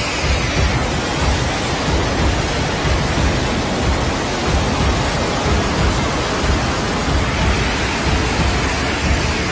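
Muddy flash flood rushing past: a steady, loud noise with a heavy low rumble underneath.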